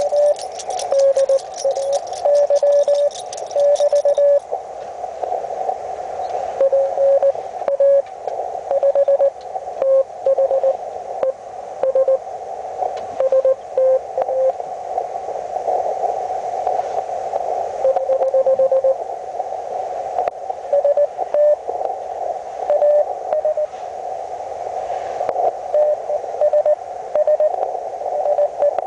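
Morse code (CW) received on a Hendricks PFR-3A QRP transceiver: keyed beeps, short and long, around 500–600 Hz over a narrow band of receiver hiss. The tone's pitch shifts a little between stretches as the signal changes.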